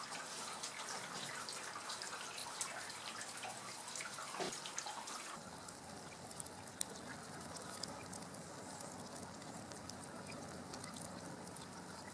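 Wood fire burning in a homemade rocket-stove foundry furnace: a low, steady rush with scattered sharp crackles.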